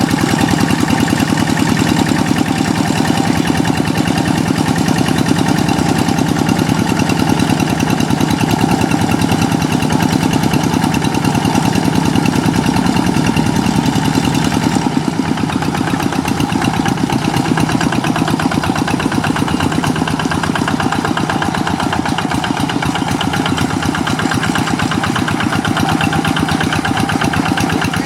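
Kubota diesel engine of a hand tractor running steadily with a rapid, even chug; its sound shifts slightly about halfway through.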